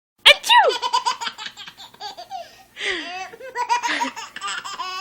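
A baby laughing hard in repeated bursts of giggles and belly laughs, with breathy gasps between them. The sound starts suddenly with a sharp burst.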